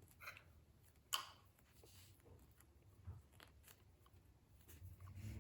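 Faint handling noises of small plastic fidget toys and a takeout container: light clicks and rustles, with one sharper click about a second in.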